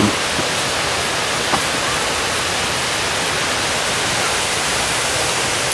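Steady rush of water from the garden's fountains, an even hiss with a couple of faint clicks over it.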